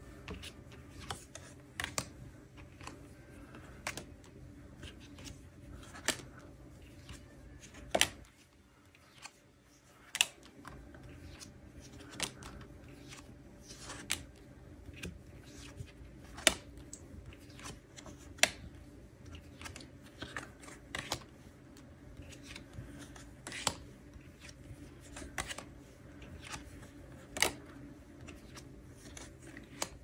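Paper message cards being handled and flipped on a loose pile of cards: irregular crisp snaps and taps every second or two, over a steady low hum.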